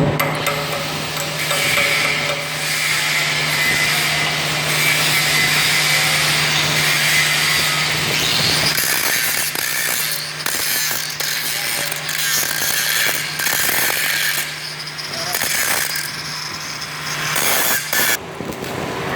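A power tool runs with a steady hum while it works against metal, with rubbing and scraping strokes throughout. The hum stops near the end.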